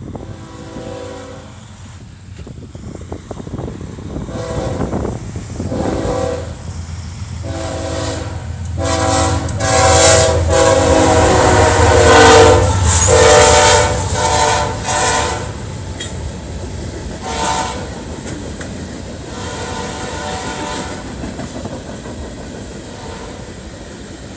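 Diesel locomotive air horn on a GE ES44AH sounded in a string of blasts of varying length, from short toots to long, loud, chord-like blasts, played for show rather than as a standard signal. The locomotive's engine rumble swells as it passes mid-way, and the horn tails off into a few shorter blasts over the noise of the train rolling by.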